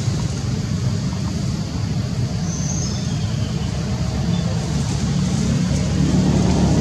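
A steady low rumble with no distinct events, with a few faint, brief high chirps about two and a half seconds in.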